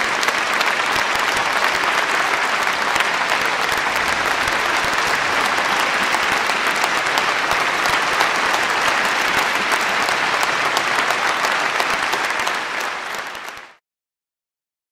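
Audience applauding steadily, many hands clapping at once; the applause fades out quickly near the end.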